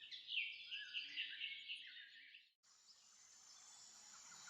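Bird-song sound effect: a quick run of repeated chirps that cuts off suddenly about two and a half seconds in. After a short gap, a faint jungle ambience of insects and scattered bird calls fades in.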